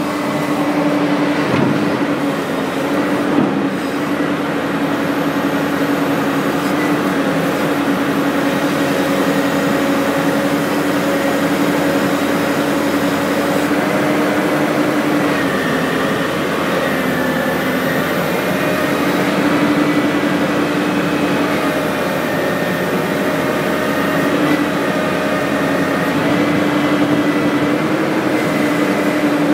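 Excavator engine and hydraulics running steadily, heard from the operator's cab, with a constant drone and whine. The pitch dips briefly about halfway through and again a few seconds later.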